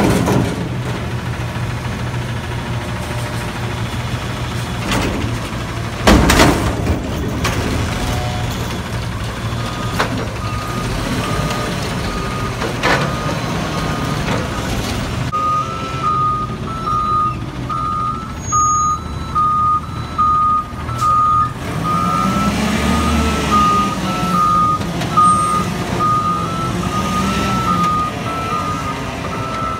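LNG Autocar ACX McNeilus front-loader garbage truck: the engine runs steadily while the container bangs loudly against the hopper twice as it is shaken out overhead. The back-up alarm then starts beeping steadily, about ten seconds in and clearer from halfway through, and the engine revs up and down near the end.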